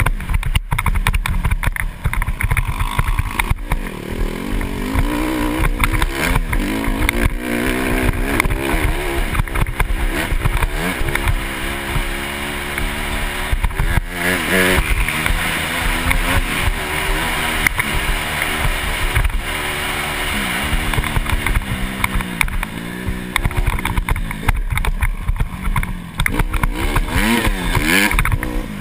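Enduro dirt bike engine being ridden hard, its pitch rising and falling over and over with throttle and gear changes. A constant low rumble of wind buffets the helmet-mounted microphone.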